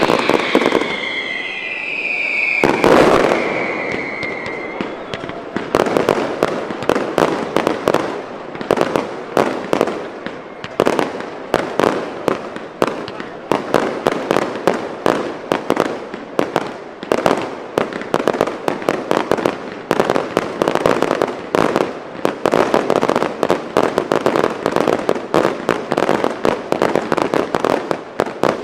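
Fireworks display: whistling rockets sliding in pitch and a single heavy bang about three seconds in, then from about five seconds a dense, rapid barrage of shell bursts and sharp cracks.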